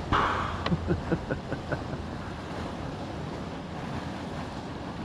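Steady rush of river water with wind on the microphone. Near the start comes a short burst, then a quick run of about six clicks.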